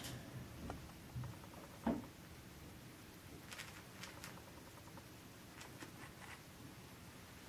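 Faint scattered clicks and taps from cockatiels moving and preening in a wire cage, with one dull thump about two seconds in. The birds make no calls.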